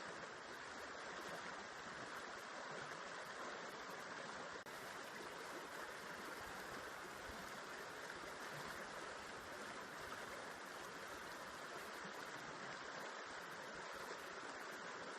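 River water flowing, a steady, even rushing of water.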